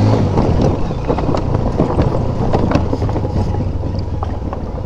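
Motorcycle engine running at low speed, with wind on the microphone and irregular clattering knocks as the wheels roll over the deck of a suspension bridge.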